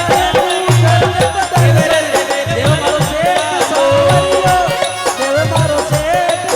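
Rajasthani folk bhajan music: a gliding, ornamented melody over a steady drum beat.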